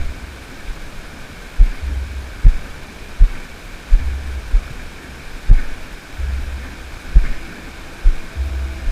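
Repeated low thuds on the microphone, roughly once a second, with bouts of low rumble between them over a steady faint hiss.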